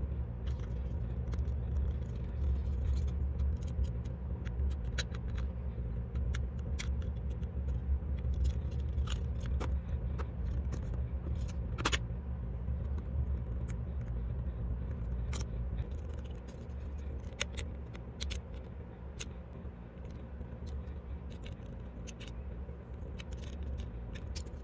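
Scattered light clicks and taps of plastic radio-case parts and metal battery contacts being handled and fitted, one sharper click about halfway through, over a steady low rumble.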